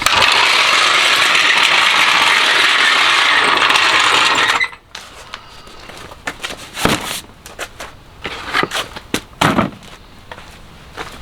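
Cordless 1/2-inch impact wrench hammering steadily for about four and a half seconds, then cutting off sharply, followed by scattered metallic clicks and clinks.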